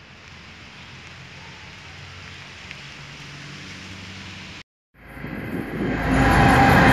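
A faint steady engine hum, then, after a brief break, a twin-section diesel locomotive approaching along the track, its engines and rolling wheels growing quickly louder.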